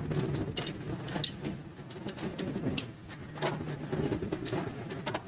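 Motorcycle clutch friction and steel plates clinking against each other as the stack is handled by hand: a scatter of light metallic clicks and ticks over a low background hum.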